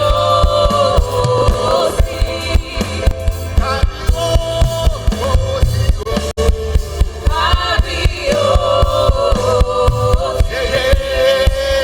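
Live gospel worship music: voices sing long held, wordless-sounding notes over a band with a steady drum beat and bass.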